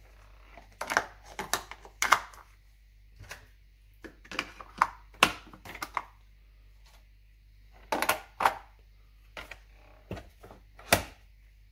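Hard plastic parts of a Philips Senseo coffee machine clicking and knocking into place as the water tank and lid are fitted: an irregular series of sharp clicks and knocks.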